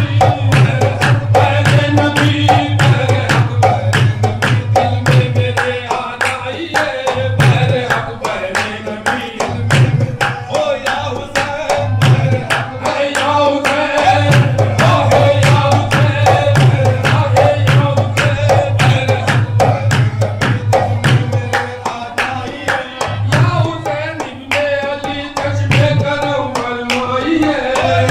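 Qawwali music with tabla drumming in a fast, steady beat, singing and melodic accompaniment.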